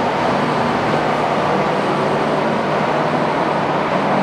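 Geminis GE 650 heavy engine lathe running steadily under power with no cut: a constant whir of the geared headstock and its 20 hp main drive motor.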